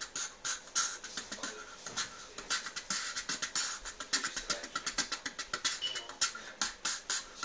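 A man beatboxing: a fast, steady rhythm of sharp percussive mouth sounds.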